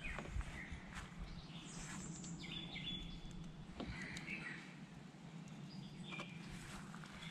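Outdoor ambience: scattered songbird chirps over a steady low background hum, with a few faint clicks from handling.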